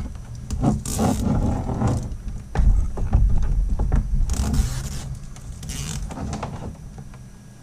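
Backing being peeled off the 3M adhesive tape of an LED light strip in a few short tearing pulls, with knocks and rustling as the strip is pressed into place.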